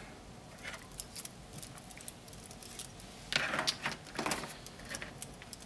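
3D-printed plastic snowmobile track links clicking and clattering against each other as the assembled track is handled. The clicks are scattered, with a busier burst of rattling a little past halfway.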